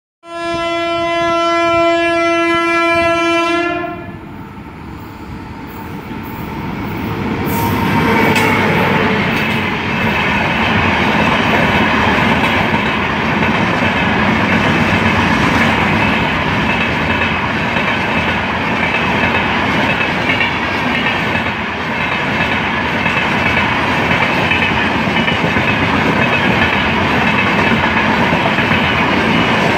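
An Indian Railways passenger train sounds one long, steady horn blast lasting about three and a half seconds. Its noise then builds as it approaches, and a long rake of passenger coaches rolls past with a steady rumble and wheels clattering over the rail joints.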